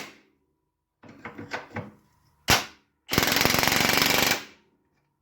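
Impact wrench hammering a bolt tight in one burst of a little over a second, after a few tool clicks and a sharp clank.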